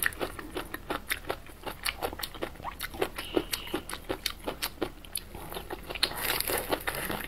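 Close-miked chewing and lip-smacking while eating a blistered green chili pepper (tiger-skin pepper) in chili sauce: an irregular run of short mouth clicks and smacks, several a second, thickening near the end as she takes another bite.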